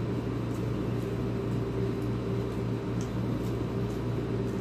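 Steady low mechanical hum from a running appliance in the room, with a few faint soft clicks from a man chewing a mouthful of rice.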